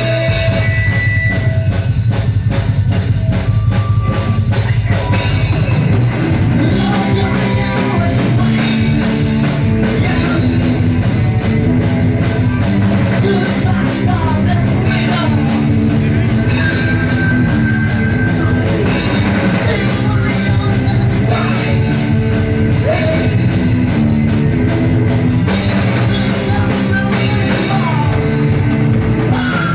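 Rock music from a band, with a drum kit playing a steady beat.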